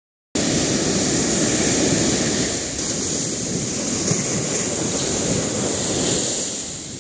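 Silence, then, cutting in about a third of a second in, ocean waves breaking and washing onto the beach, with wind on the microphone. The surf fades down near the end.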